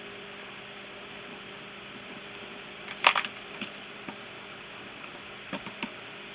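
Small metal hand tools clicking and clinking as they are handled and fitted into a toolbox tray: one sharp clack about three seconds in, then a few lighter clicks, over a steady low hum and hiss.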